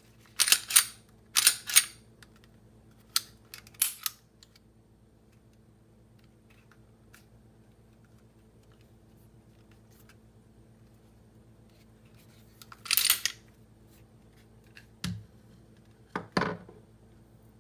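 Taurus G2C 9mm pistol being handled: several sharp metal clacks of the slide being racked in the first four seconds, then after a pause more clicks and clacks near the end as the slide is worked off the frame.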